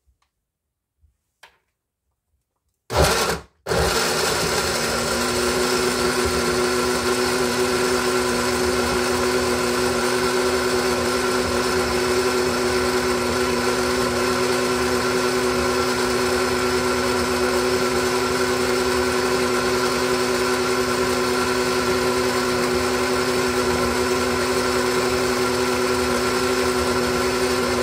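Small countertop blender motor starting about three seconds in with a short burst, a brief stop, then running steadily at full speed, blending cucumber, green apple, spinach and water into a green juice.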